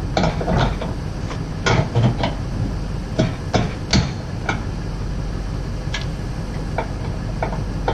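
Irregular metallic clanks and clinks of steel weight-distributing hitch parts being handled, about a dozen sharp knocks with the loudest around two and four seconds in, over a steady low hum.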